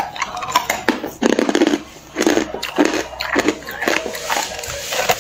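Hard clear ice crunching between teeth as it is chewed, in a run of sharp crackling crunches about two a second.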